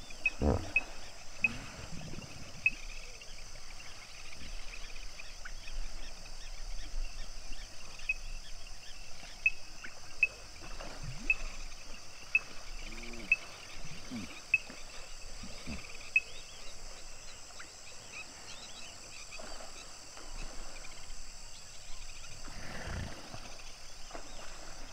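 Hippos grunting and honking now and then with deep, low calls, one near the start, several in the middle and one near the end. Short high chirps and a steady high chorus run underneath.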